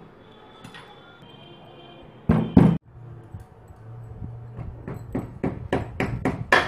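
Ginger and tulsi leaves being pounded in a steel bowl: one loud knock, then a quick run of strikes, about five a second, growing louder towards the end.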